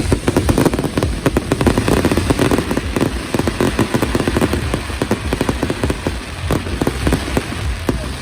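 Fireworks going off in rapid succession: a dense string of sharp pops and crackles, many per second.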